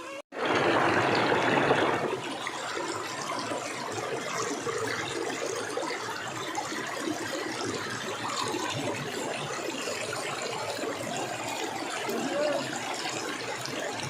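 Flowing stream water: a steady rushing trickle. After a brief break just at the start, it is louder for the first couple of seconds, then evens out.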